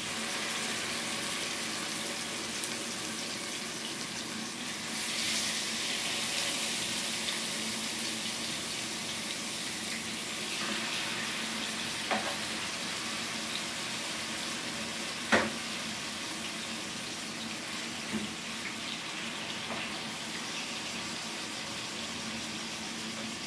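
Stuffed pork chops sizzling as they sear in hot oil in a frying pan, a steady hiss that grows louder about five seconds in. A few sharp clicks of a utensil against the pan, the loudest about midway.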